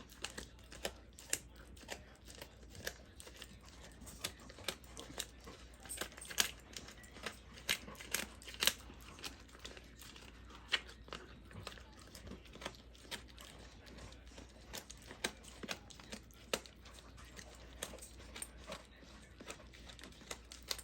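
Belgian Malinois chewing a pig ear: irregular crunching and crackling as the dried, cartilage-laden ear breaks between its teeth, with a sharper crunch every second or so.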